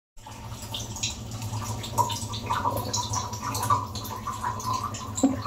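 A steady low hum under a constant trickle of small, irregular drips and ticks, like running or dripping water.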